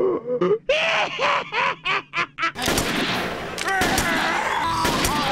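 A man's voice crying out in a string of short, separate yelps, each rising and falling in pitch. From about halfway a burst of gunfire begins: several sharp shots over a loud hiss, with voices under it.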